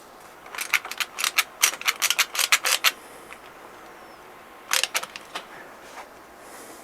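Hand clamp being ratcheted tight: a quick run of about fifteen sharp clicks, some six a second, then a short cluster of clicks about five seconds in.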